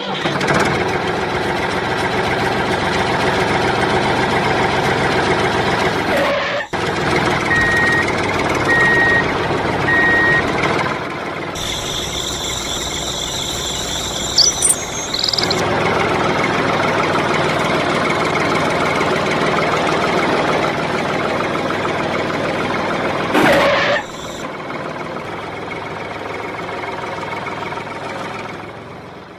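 Small tractor engine running steadily, heard across several cut-together clips, with three short beeps a little over eight seconds in.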